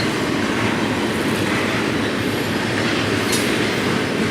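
Intermodal freight train's container cars rolling past close by: a steady rumble of steel wheels on rail, with a brief high scrape about three seconds in.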